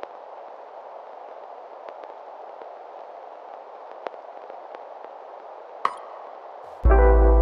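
A steady hiss with sparse faint clicks, the vinyl-crackle noise bed of a lo-fi R&B track, with no instruments playing. Near the end a bass-heavy beat comes in suddenly.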